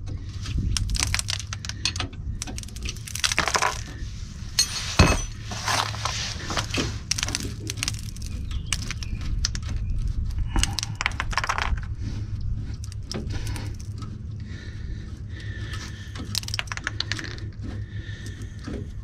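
Irregular metallic clinks, knocks and rattles of hand tools and bolts as a truck air dryer is worked loose from its mount, thickest in the first twelve seconds and thinning out toward the end, over a steady low hum.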